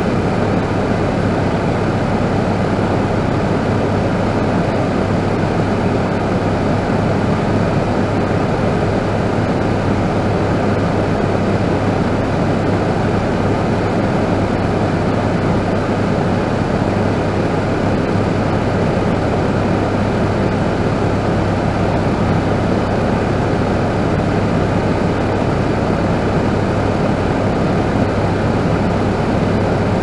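Small electric fan heater running, its blower giving a steady, even rush of air with a low hum underneath.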